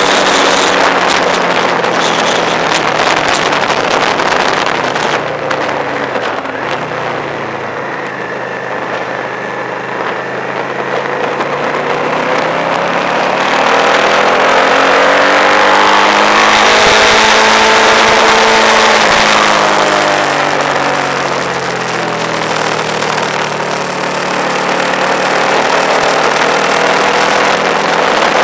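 Vehicle engine running on the move, with road and wind noise. Its pitch climbs from about halfway through, holds briefly, then falls away again.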